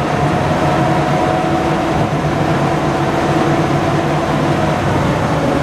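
Engine of an amphibious duck boat, a WWII-era DUKW, running steadily on the water. It is a loud, even drone with a constant hum, heard from the open passenger seats aboard.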